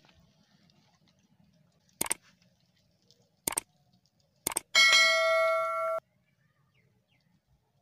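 Subscribe-button overlay sound effects: three sharp mouse clicks, then a bell ding that rings for about a second and cuts off suddenly.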